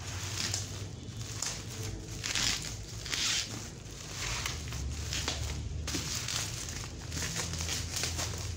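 Black bubble-wrap plastic crinkling and rustling in irregular bursts as it is pulled off a cardboard box.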